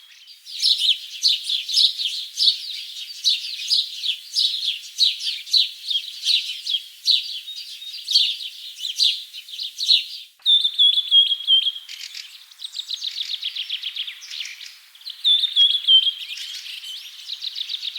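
Small birds chirping in a dense, rapid chorus of high, quick notes. A short falling whistled phrase recurs a few times, and the sound breaks off abruptly for an instant about ten seconds in before the chorus resumes.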